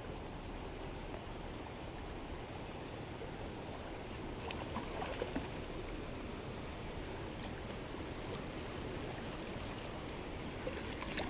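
Creek water running steadily over rocks, with a few faint ticks about five seconds in.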